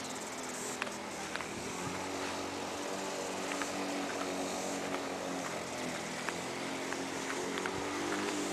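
Steady engine drone of a vehicle, slowly rising and falling in pitch, with scattered faint clicks over it.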